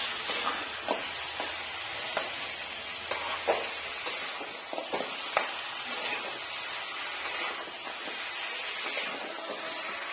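Spiced meat and onions sizzling as they fry in a kadai. A flat metal spatula stirs them, giving irregular scrapes and clicks against the pan over a steady frying hiss.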